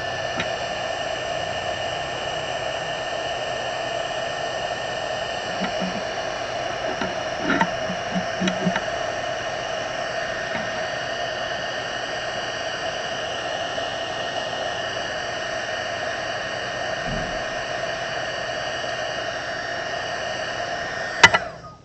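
Heat gun running steadily, a blower hiss with a steady whine, shrinking heat-shrink tubing over a soldered wire joint. It cuts off with a sharp click near the end.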